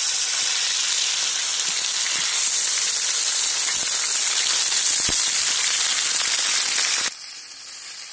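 Raw pork pieces frying in hot oil in a saj pan over a campfire: loud, steady sizzling that drops abruptly to a quieter sizzle near the end.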